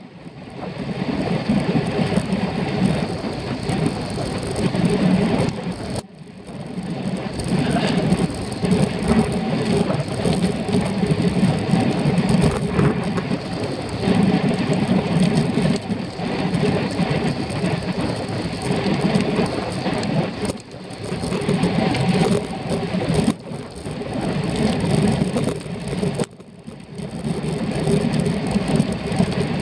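Wind buffeting the microphone of a bicycle-mounted camera at racing speed, mixed with tyre noise on asphalt: a loud, gusty rushing that eases briefly a few times.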